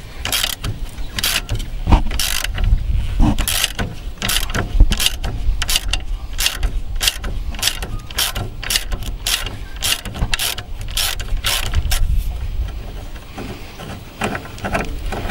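Hand socket ratchet clicking, about three strokes a second, as it undoes a mounting bolt at the base of a tractor's power steering column. The clicking pauses briefly near the end, and there is low rumble from the microphone being bumped.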